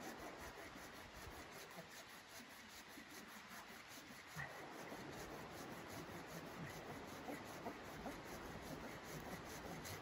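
A blade rasping into a piece of firewood in repeated, regular strokes.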